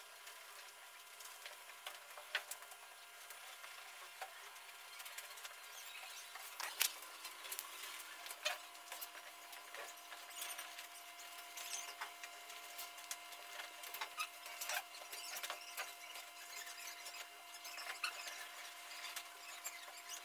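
Upholstery fabric rustling and rubbing as hands spread and smooth it over a foam slab, with scattered small crackles and ticks.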